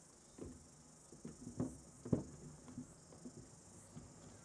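Irregular footsteps and knocks as several people walk up the steps and across a stage platform, the loudest about two seconds in, over a steady high hiss.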